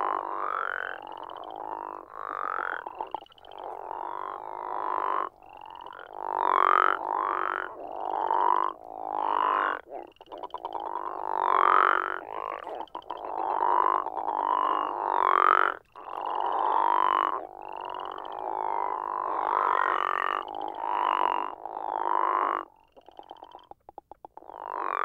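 Northern crayfish frogs giving their deep, snoring breeding call, calls following one another almost without pause and often overlapping, each rising in pitch toward its end.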